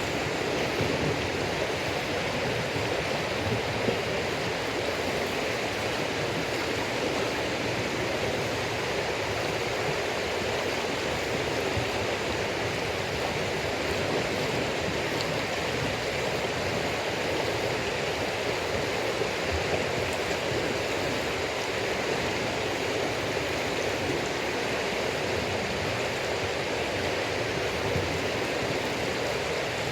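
Steady rushing of running water, even and unbroken, with an occasional faint click.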